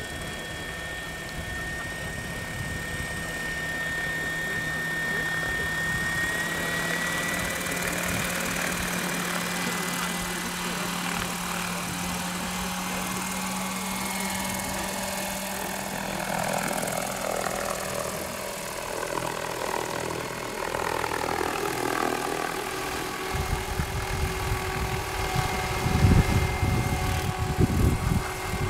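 Electric MD500 scale RC model helicopter spooling up: the motor's high whine rises in pitch over the steady rotor note. It then lifts a large cross on a sling line, and its pitch shifts and wavers as it climbs. Gusty low rumbling comes in near the end.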